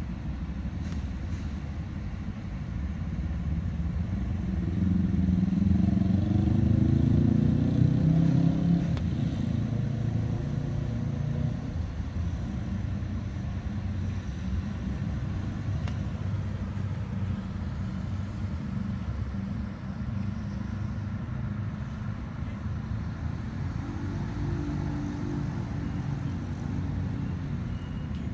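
Road traffic: a steady low rumble of passing vehicles. About five seconds in, one vehicle's engine grows louder and rises in pitch as it accelerates past, the loudest part, then fades back into the general traffic noise.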